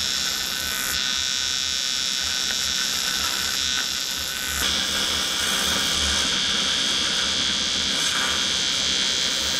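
Wire-feed (MIG) welding arc buzzing steadily while a crack beside a fin of a jet ski's jet pump housing is welded. The tone shifts slightly about a second in and again a little past halfway.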